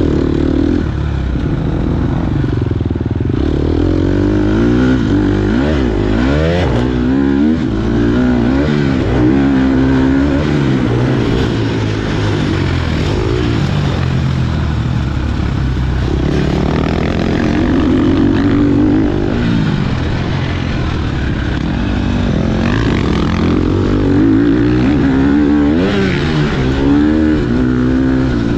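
KTM 250 XC-F dirt bike's four-stroke single-cylinder engine, revved hard and backed off over and over as it is ridden through an off-road course; the pitch climbs and drops in repeated sweeps.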